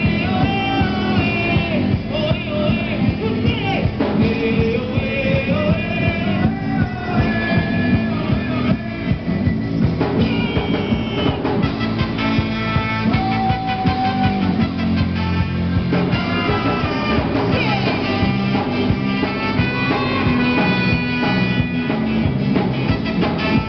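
Live rock band playing, with electric guitar, keyboard, and trumpet and trombone, and a man singing into a microphone.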